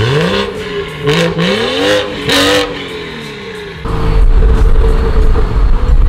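BMW 340i's B58 turbocharged straight-six revved several times, its pitch rising and falling with each blip. About four seconds in this gives way abruptly to a loud, steady low drone of driving at highway speed.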